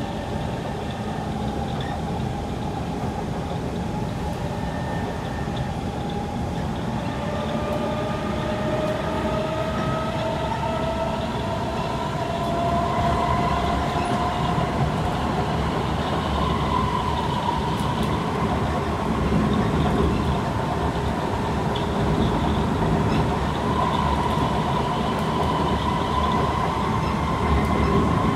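Kawasaki C151 metro train in motion, its traction motor whine rising in pitch as it accelerates and then holding steady at speed, over a steady rumble of wheels on the track. The motor noise is quite loud for this train.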